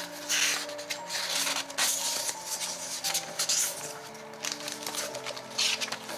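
Paper rustling and brushing as the pages of an old book are flipped and loose printed pages are handled, in several short swishes, over soft background music.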